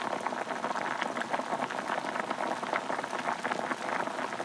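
A pot of curry bubbling as it simmers: a steady, dense crackle of many small pops.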